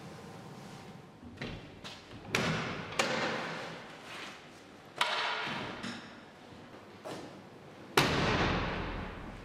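A series of heavy thuds and knocks, four of them big, each dying away in a long echo; the loudest comes about eight seconds in.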